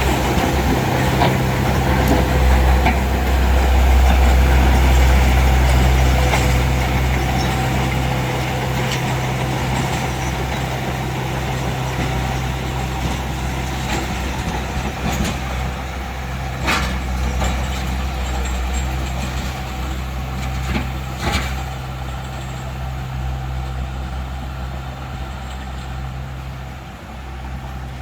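Heavy diesel construction machine running steadily, with a few sharp metallic clanks in the second half; it grows gradually quieter toward the end.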